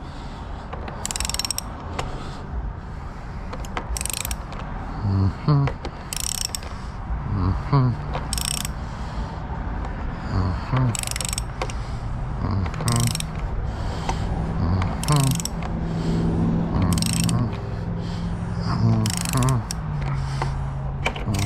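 Large ratchet wrench tightening the clamp on a door-prep jig, its pawl clicking in short bursts on each back-swing, about every two seconds, with low squeaky tones from the parts under load between the strokes.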